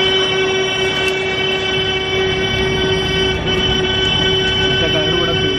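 Boat horn sounding one long, steady blast over a low rumble.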